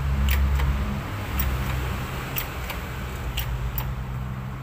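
Sharp light clicks, about one a second, over a low steady hum that fades in and out.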